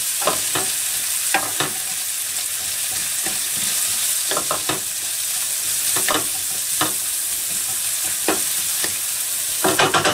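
Diced onions and bacon sizzling in a hot frying pan, with a steady hiss. A wooden spatula scrapes and knocks against the pan at irregular intervals as they are stirred.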